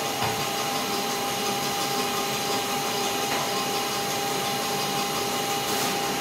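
Horizon SPF-20A stitcher-folder running through its automatic setup: a steady mechanical whir with a few held whining tones from its motors.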